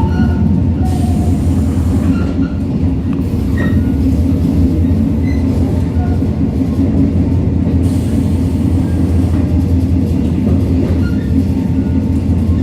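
Train running along the track: a steady, loud low rumble with a few faint brief squeaks and clicks over it.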